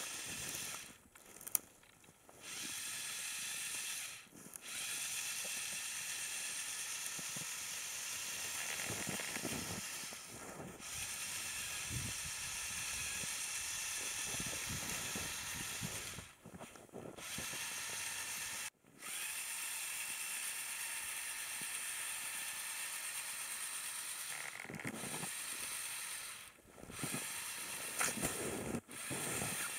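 Four Lego Power Functions XL motors and their gearing whirring steadily as the tracked Lego Technic vehicle drives on snow, cutting out and starting again several times.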